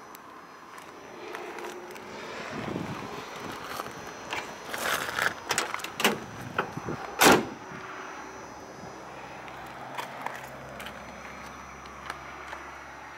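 Driver's door of a 1965 Plymouth Barracuda being opened with a few sharp latch clicks, then shut with a single loud slam about seven seconds in.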